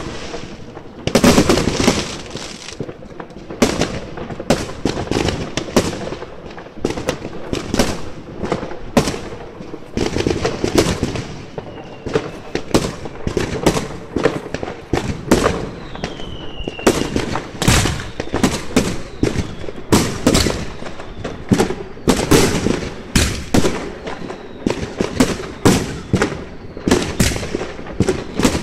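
Aerial fireworks going off in a dense, irregular run of sharp bangs and crackles, with a short falling whistle a little past halfway.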